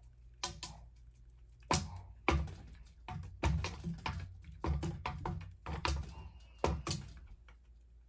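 Irregular sharp knocks and thumps, about a dozen in a few seconds, as a small cat swats at the spinning blades of a ceiling fan and scrambles on a wooden shelf.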